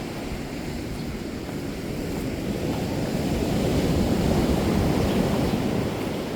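Ocean surf breaking and washing, a steady rush that swells about halfway through and eases near the end, with wind buffeting the microphone.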